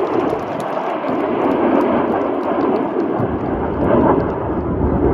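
BAE Hawk T1 jets flying past in formation: a loud, steady jet rumble that swells again after about three seconds.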